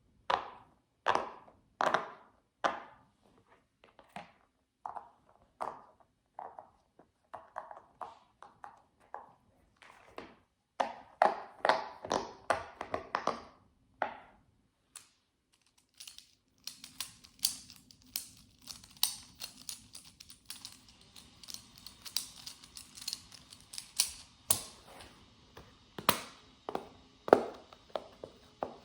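Fidget toys handled close to the microphone for ASMR: irregular taps and clicks at first, then from about halfway through a denser, continuous crackling and clicking.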